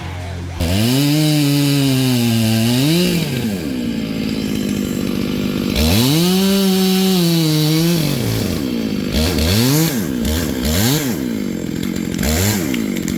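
Gas chainsaw revving as it cuts wood, in two long pulls with the engine pitch sagging and climbing again. A quick series of short throttle blips follows near the end.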